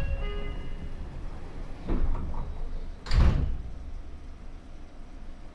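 Sliding passenger doors of a Seibu 6000 series commuter train closing before departure: a knock with brief ringing tones at the start, then two heavy thuds about two and three seconds in as the doors shut.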